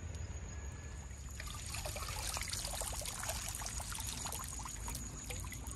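Water trickling and splashing in many quick small spatters, beginning about a second in, over a steady low rumble.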